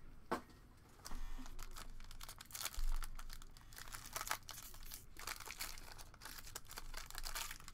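Trading-card pack wrapper crinkling and tearing as it is pulled open by hand, a dense run of crackles starting about a second in.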